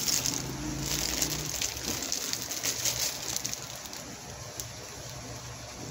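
Crackling rustle of trading cards and their plastic packaging being handled, dense for about the first three seconds, then thinning to a few scattered clicks.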